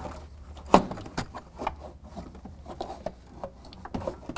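Irregular light knocks, clicks and rattles of a turbo charge tube being worked into place by hand among the frame brackets, the sharpest knock about three-quarters of a second in, over a faint steady low hum.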